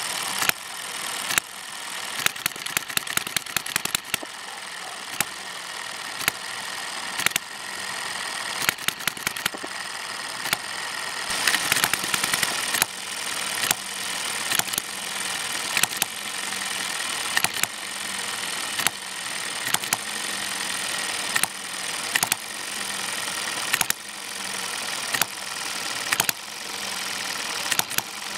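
Model hit-and-miss gas engine, a Chinese copy of a Kerzel, running on its governor: sharp firing strokes about every second or so, now and then several in quick succession, with the engine coasting between them. The governor has been fitted with new, weaker springs that hold the speed lower.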